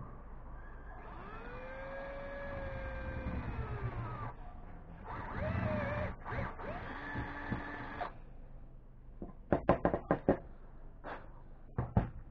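Cordless drill boring into a wooden workpiece in two runs. The motor whine rises and falls in pitch as it speeds up and slows under load. Afterwards come a quick series of sharp knocks, the loudest sounds, about ten seconds in and again near the end.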